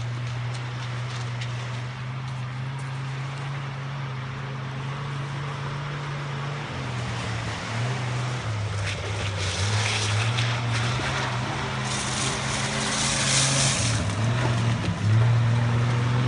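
A Jeep off-roader's engine runs steadily as it drives across the beach sand and pebbles, growing louder as it approaches. The revs change about seven seconds in and again near the end, and a hiss rises in the second half.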